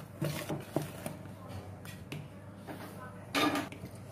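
Wire balloon whisk stirring thick chocolate cake batter in a plastic bowl: soft wet stirring with light clicks of the wires, and a louder brief scrape a little after three seconds in.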